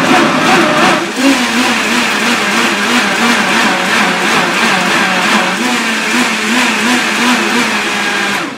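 Vitamix blender motor running at speed, churning bananas and dates into a thick purée, its pitch wavering as the load shifts. It dips briefly about a second in, pulsed to keep the mix from spinning in a cavity, and cuts off at the end.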